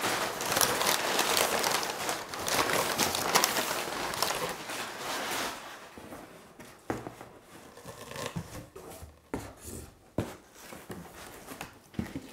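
Crumpled brown kraft packing paper rustling and crinkling loudly as it is pulled out of a cardboard shipping box. It dies down after about five and a half seconds, leaving a few light knocks and taps of cardboard boxes being handled.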